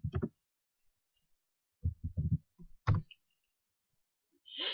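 Mostly quiet, with a few faint low thumps about two seconds in and one sharp click just before three seconds: computer keyboard keystrokes as a command is finished and entered. There is a short breath near the end.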